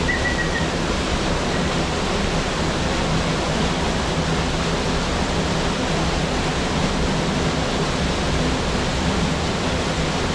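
Waterfall pouring into a swimming hole, a steady rush of falling water.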